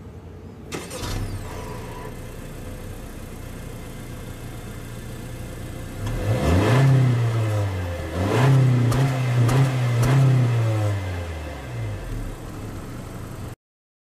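Exhaust of a 2016 Honda Civic's turbocharged four-cylinder engine idling steadily, then revved twice, about six and eight seconds in, the second rev held for a couple of seconds before falling back to idle.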